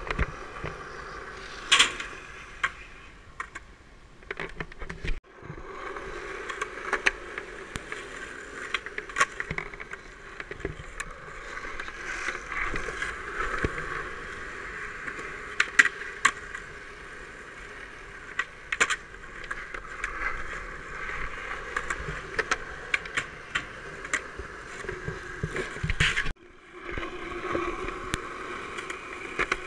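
Skateboard wheels rolling over rough concrete, with sharp clacks of the board popping and landing scattered throughout. The rolling sound breaks off abruptly twice.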